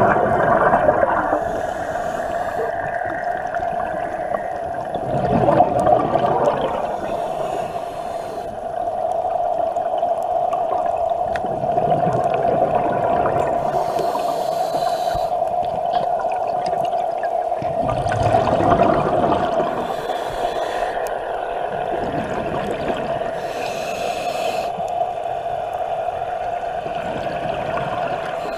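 Underwater scuba breathing through a regulator: short hissing inhalations every five to six seconds and a few gurgling rushes of exhaled bubbles, over a steady hum.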